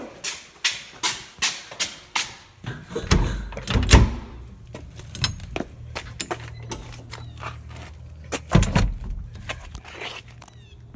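Footsteps walking, with two heavy thuds of a door, one about three to four seconds in and another near the nine-second mark, and a low steady hum between them.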